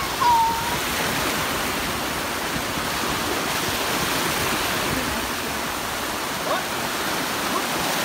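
Small sea waves breaking and washing through the shallows, a steady rush of surf. A short high-pitched cry rises above it just after the start.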